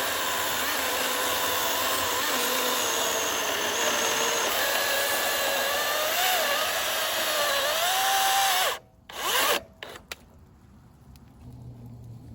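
A power tool motor running under load for about nine seconds, its pitch wavering, then cutting off suddenly; a short second burst follows.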